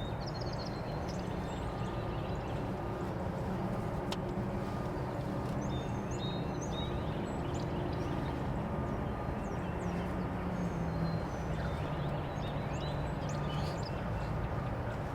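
Woodland morning ambience: scattered songbird chirps over a steady low rumble of road traffic.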